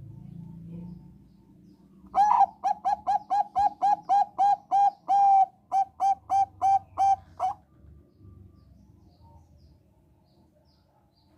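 Thai-bred zebra dove (perkutut bangkok) singing: a quick run of about twenty short, clear cooing notes, about four a second, lasting some five seconds before it stops.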